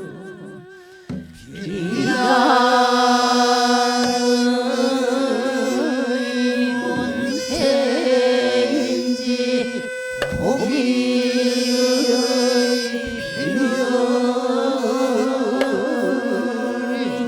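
Naepoje sijo sung by a mixed chorus of men and women: long, slowly held notes with a wavering vibrato, broken by a few short pauses for breath.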